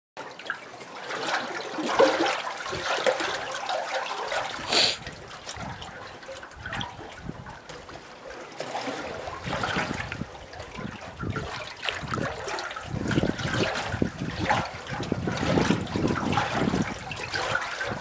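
Small lake waves lapping and splashing at the water's surface in an uneven, continuous pattern of little slaps and gurgles.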